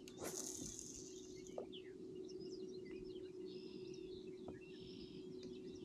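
Birds chirping and calling in short scattered notes over a faint steady low hum, with a few sharp clicks.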